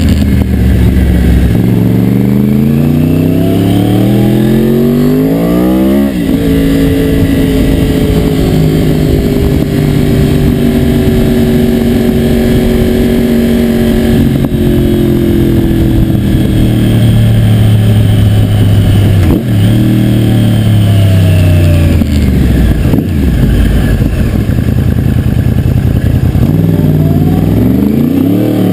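2009 Yamaha YZF-R1's crossplane inline-four running under way: it revs up hard through a gear, drops sharply on an upshift about six seconds in, then holds a steadier note that sinks gradually as the bike slows. It picks up and revs again near the end.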